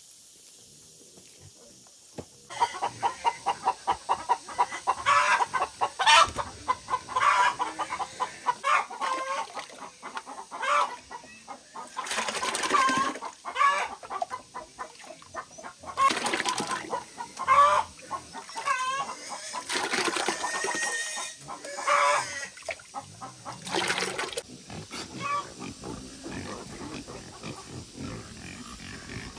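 Farm animals calling: rapid, pulsing calls start about two and a half seconds in, and several loud high-pitched cries follow.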